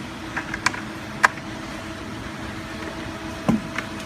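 A steady mechanical hum with several short, sharp clicks and knocks, two of them close together about a second in and a cluster near the end.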